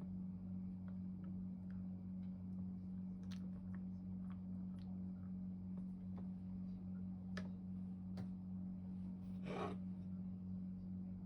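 A steady low hum with a few faint light clicks scattered through it, and one brief rustle or scrape about nine and a half seconds in.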